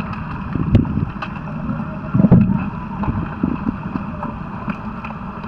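Underwater hockey play heard through an underwater camera: a muffled low rumble of churning water with scattered sharp clicks, and dull thumps just under a second in and, loudest, a little over two seconds in.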